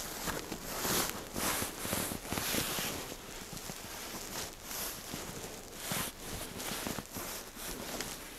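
Hanging clothes, mostly denim jeans and jackets, rustling and swishing as a hand pushes through them. The swishes come in a run of soft, irregular bursts.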